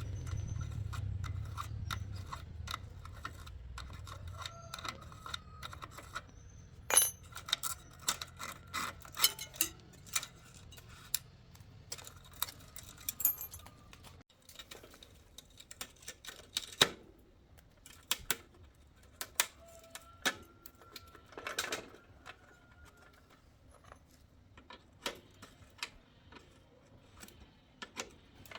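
Irregular light metallic clicks, taps and clinks of hand tools on small metal parts, some with a faint ring. A low hum fades under them and stops about halfway through.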